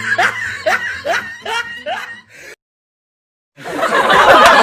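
Snickering laugh: a run of short rising notes, about three a second, that cuts off after about two and a half seconds. After a second of dead silence a busy, chattering voice-like sound starts near the end.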